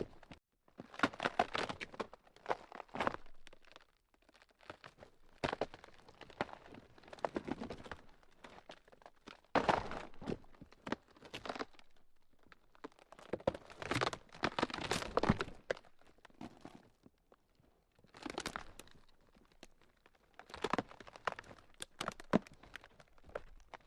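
Ground cracking: dense crackling and crunching in irregular bursts of a second or two, with short quieter gaps between them.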